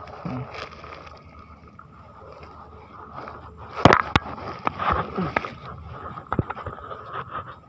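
Footsteps in flip-flops scuffing on a concrete seawall, with knocks and rubbing from a handheld camera being carried while climbing. The loudest knocks come about four seconds in. A steady hum runs underneath.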